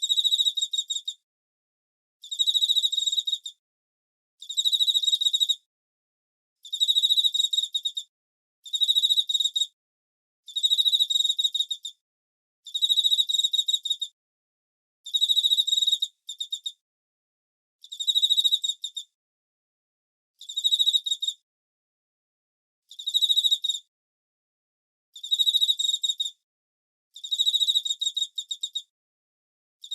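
A cricket chirping: high-pitched trills of rapid pulses, each about a second long, repeating roughly every two seconds with silent gaps between.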